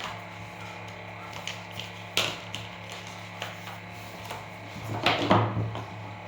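Light clicks and knocks of boxed items and packaging being moved about on a table, with a louder scrape or rustle about five seconds in, over a steady low hum.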